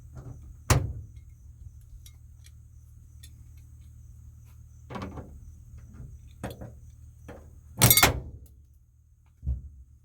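Scattered knocks and taps from hands working with tools and parts: a sharp knock near the start, several lighter taps, a loud ringing clatter about eight seconds in and a dull thump near the end.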